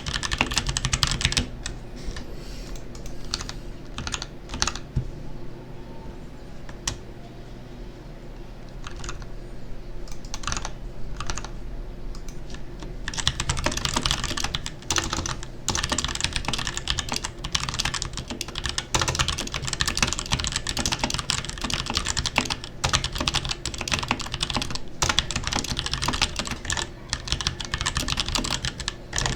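Royal Kludge RK61 mechanical keyboard with brown tactile switches, about a year old, being typed on. Slow, scattered keystrokes give way to fast, continuous typing about halfway through.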